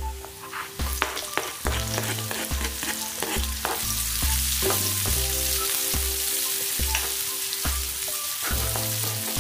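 Sliced shallots and garlic sizzling in hot oil in a non-stick wok, with a spatula repeatedly scraping and stirring them. The sizzle grows louder about four seconds in.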